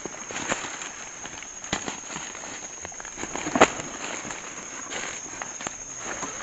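Footsteps rustling and crackling through forest undergrowth, with a sharp snap about three and a half seconds in, over a steady high insect chirring.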